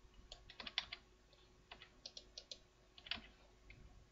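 Faint, irregular clicking of computer keyboard keys being pressed, in small clusters.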